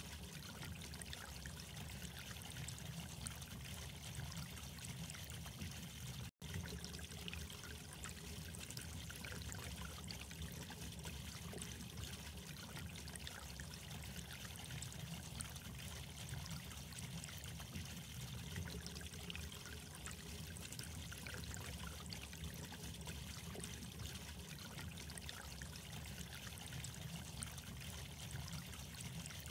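Steady trickling, running water, with a momentary break about six seconds in.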